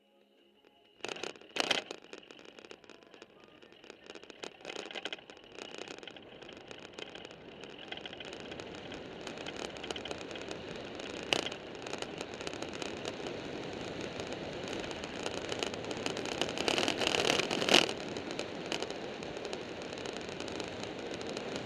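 Onboard sound of an engineless gravity racer rolling downhill on asphalt: tyre and rolling noise with the chassis rattling, growing steadily louder as it gathers speed. It is broken by sharp knocks from bumps, with a louder rough patch near the end.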